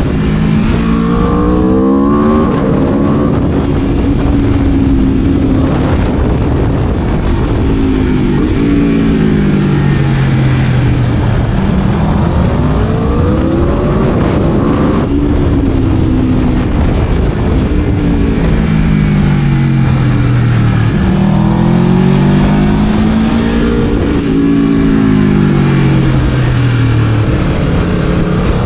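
Aprilia RSV4 V4 sport-bike engine run hard: its pitch climbs and drops again and again as the rider accelerates, shifts and rolls off, with several long falling sweeps.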